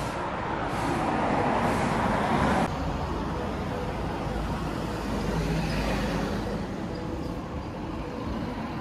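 Road traffic noise: louder for the first couple of seconds, then cutting off suddenly to a steadier, quieter traffic hum with a deep rumble.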